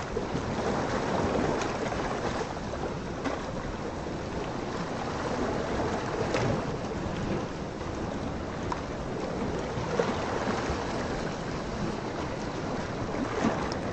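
Steady rush of sea water and waves, with a few faint knocks.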